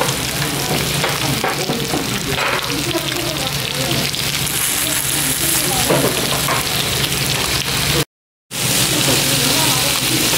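Beef tripe and vegetables sizzling on a round metal grill pan: a steady frying hiss that cuts out briefly near the end.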